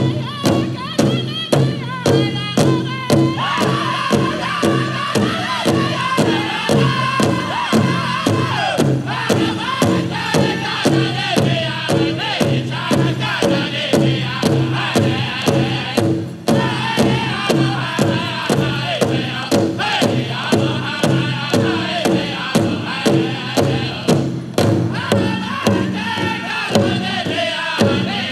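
Powwow drum group singing a fast fancy dance contest song: several singers strike a large bass drum in unison about twice a second under high-pitched group singing.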